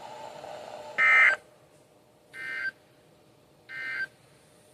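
Three short bursts of warbling SAME digital data tones from weather radio receivers: the end-of-message bursts that close a NOAA Weather Radio required weekly test. The first burst is the loudest, the next two fainter, about a second and a third apart.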